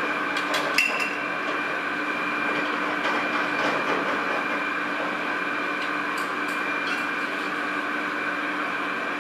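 Steady hum of winery machinery with a few held tones, and scattered metal clinks and knocks as fittings on a vat are handled, several close together in the first second.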